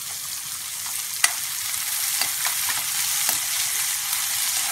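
Chopped onions sizzling in hot oil in a metal kadhai as they start to sauté, with a spatula scraping and clicking against the pan while stirring; one sharper click about a second in.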